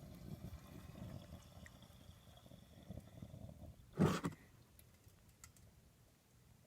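Homemade waste-oil burner built from propane cylinders and exhaust pipe, its flame giving a low, fluttering rumble that fades after a few seconds. About four seconds in comes a single loud knock.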